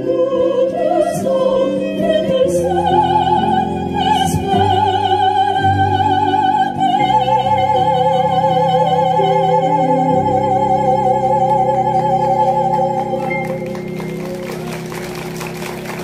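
Sopranos singing in operatic style with wide vibrato over keyboard and violin, holding the song's long closing note; the note ends about three-quarters of the way through and the accompaniment fades out.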